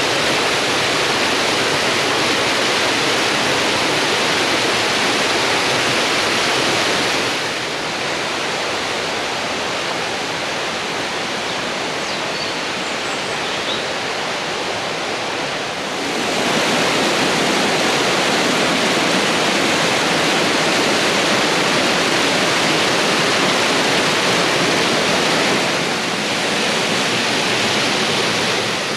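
Mountain waterfall and stream cascades rushing steadily. The noise drops a little about a quarter of the way in and grows louder again a little past halfway.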